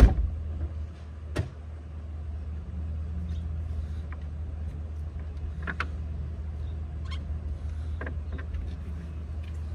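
Knocks and taps from a plywood sleeping platform being handled and shifted in an SUV's cargo area: a sharp knock at the start, another about a second and a half in, then several lighter taps. A steady low rumble runs underneath.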